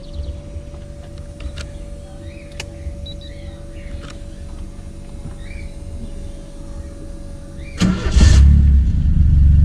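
Carbureted 1.6 turbo four-cylinder engine of a Chevette, started: a short crank about eight seconds in, then the engine catches and runs loud and steady. Before that, a low steady hum with a faint steady whine.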